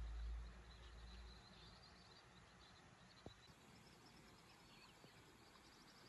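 Faint rural ambience: distant birds chirping high and thin, with a low wind rumble on the microphone that dies away about a second and a half in, and a single small click about three seconds in.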